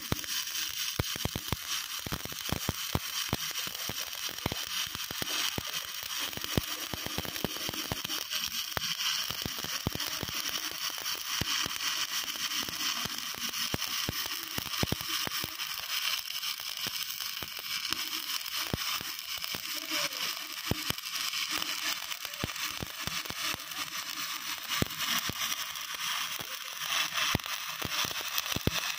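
Stick welding arc with an E6013 electrode, crackling steadily as a fill pass is laid on a carbon steel pipe-to-flange joint: a dense, even crackle of many fine pops, mostly in the upper range.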